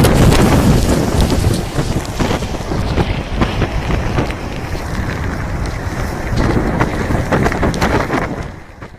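Strong wind buffeting the microphone in gusts over storm-driven surf. The sound fades out near the end.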